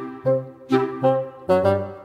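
Background music: a run of sharply attacked, held notes, about two a second.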